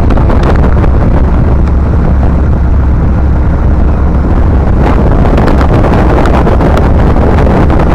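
Motorboat engine running steadily and loudly, with wind buffeting the microphone.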